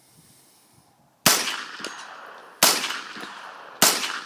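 Just Right Carbine in 9mm firing subsonic rounds unsuppressed: three sharp shots roughly a second and a quarter apart, each trailing off in echo.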